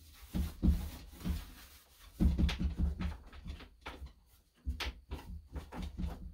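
Irregular wooden knocks, bumps and rubbing as a plank door is worked over by gloved hands with a stain rag, with short clicks among the low thuds.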